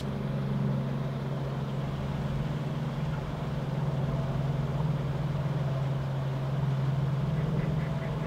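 A steady low engine hum at a constant pitch.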